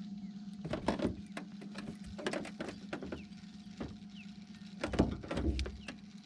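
Irregular light clicks and taps of a spinning rod and reel being worked by hand as a fish is brought in, with a dull knock about five seconds in, over a faint steady hum.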